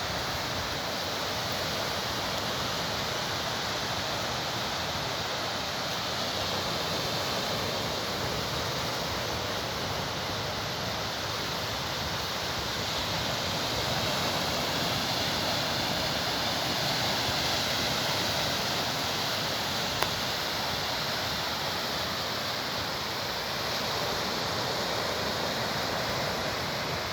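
Sea surf washing steadily on the shore, its hiss swelling and easing slowly, with one short click about twenty seconds in.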